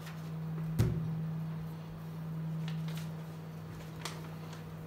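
Room tone: a steady low hum, with one sharp knock just under a second in and a few light clicks later on.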